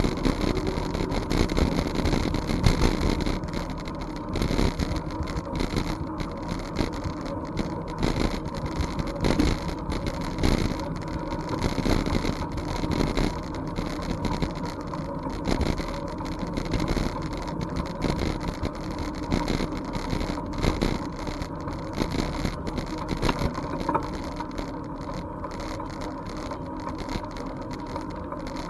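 Steady rumbling noise of a bicycle riding along a trail, with frequent small knocks and rattles throughout.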